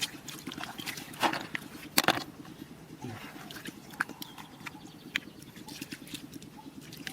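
Handling noise from snail picking: several sharp clicks and knocks, the loudest about two seconds in, over a steady low pulsing drone.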